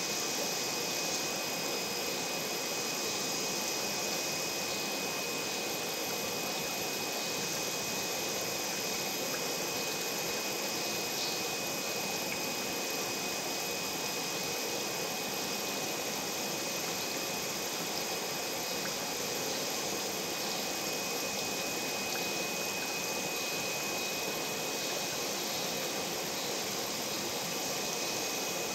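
Aquarium pump running steadily: an even hiss of moving water with a constant high whine over it.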